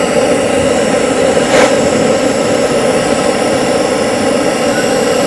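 Gas camping burner running with a steady hiss, with a brief faint crackle about a second and a half in.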